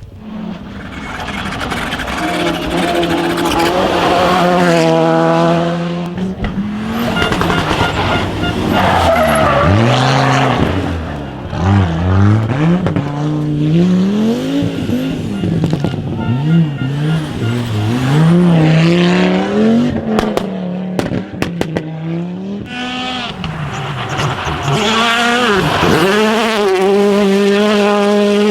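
Rally car engine at full throttle, the pitch climbing and dropping back again and again as it shifts up and down through the gears, with a short run of sharp cracks about two-thirds through.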